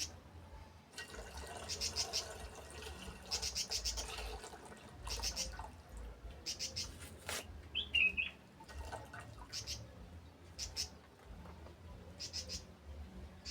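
Small birds chirping in short rapid trills every second or two, with a single short call that slides down in pitch about eight seconds in.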